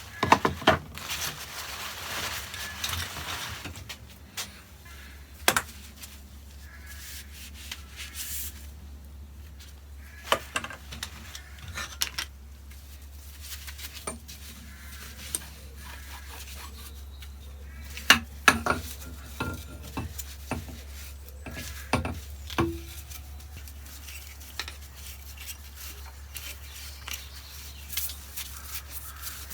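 Rubbing and handling of the dismantled parts of a Tesoro Bandido metal detector as they are cleaned, with scattered sharp clicks and knocks of small plastic and metal pieces being set down and fitted. The clicks are loudest about eighteen seconds in.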